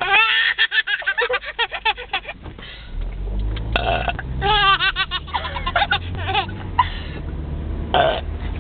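A girl belching and a baby laughing back in long runs of quick giggles, with a low car hum underneath from about three seconds in.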